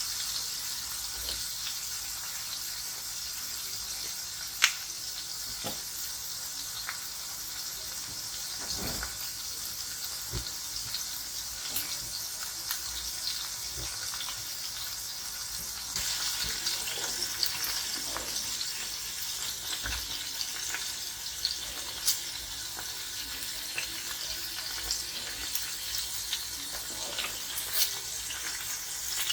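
Food frying in hot oil in a pan: a steady sizzle with scattered crackles and pops, growing a little louder about halfway through.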